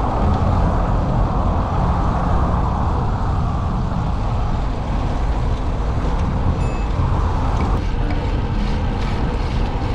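Wind rumbling on an action camera's microphone while riding a road bike, a steady loud rumble with a hiss over it that weakens about eight seconds in.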